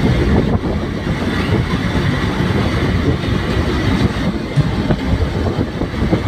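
Steady rumble of a moving vehicle's engine and road noise, heard from on board as it drives along.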